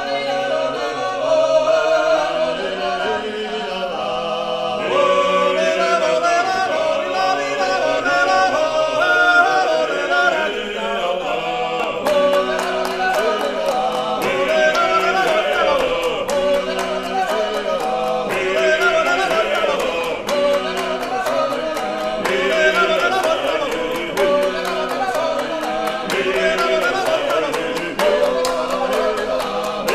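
Male vocal ensemble singing Georgian folk polyphony a cappella, several voices in close harmony. About twelve seconds in, steady rhythmic hand clapping joins the singing and keeps the beat.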